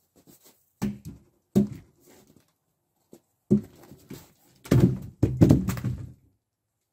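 Logs dropped onto a log pile: separate heavy wooden thunks about a second apart, then near the end a longer run of knocking and rumbling as logs roll and settle against each other.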